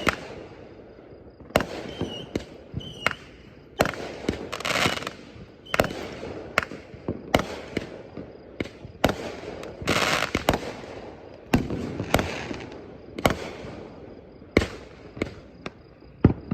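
Fireworks going off: a string of sharp bangs at irregular intervals, several close together, with longer hissing, crackling stretches between some of them.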